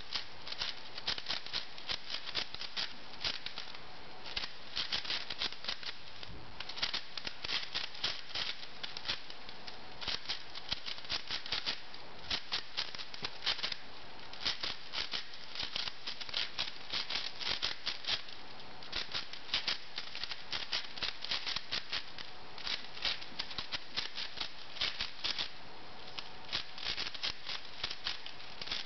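V-Cube 6 puzzle cube being turned fast: its plastic layers click and rattle in quick runs of turns, with short pauses between the runs.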